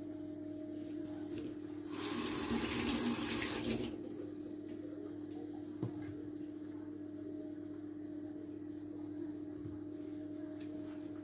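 Kitchen tap running into a stainless steel sink for about two seconds, then shut off. A single short knock comes a couple of seconds later, over a steady low hum.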